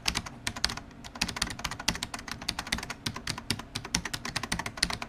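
Fast typing on a computer keyboard: a rapid, uneven run of key clicks that stops abruptly.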